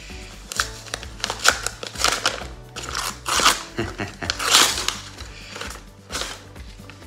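Paper envelope torn open by hand and a folded sheet pulled out and unfolded: an irregular run of ripping and rustling paper over background music.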